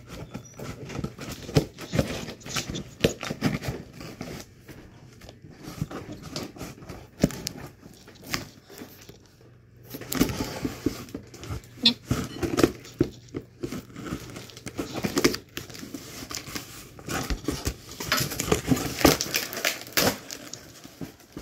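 A cardboard box being handled and opened by hand: irregular crinkling, tearing and rustling of the packaging with scattered knocks, busier in the second half.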